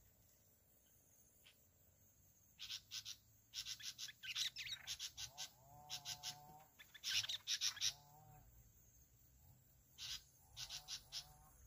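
Bulbuls calling in several bursts of quick, chirpy notes, loudest and densest in the middle and coming again briefly near the end.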